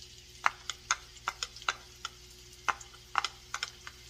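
Sliced shallots and minced aromatics sizzling in hot oil in a wok. About a dozen sharp knocks are heard as a wooden spatula taps the last bits out of a glass bowl and stirs them in the wok.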